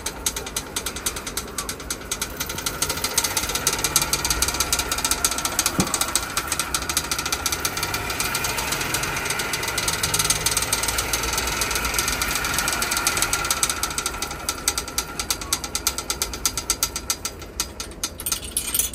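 An old bicycle's chain drive with a homemade automatic gear shifter running as the pedals are turned by hand: a rapid, steady ratcheting clatter of chain and sprockets, louder in the middle, that stops abruptly at the end.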